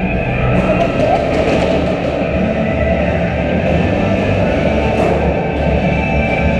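Background rock music, loud and continuous.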